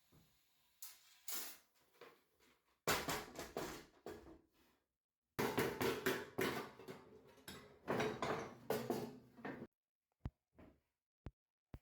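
Clusters of rapid knocks and clatter from metal parts and tools being handled, in short bursts that start and stop abruptly, with a few single clicks near the end.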